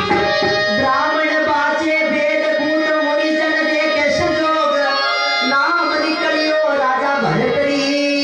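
Instrumental interlude of a Rajasthani folk bhajan: a dholak plays a steady rhythm under held melodic notes from the accompanying instruments.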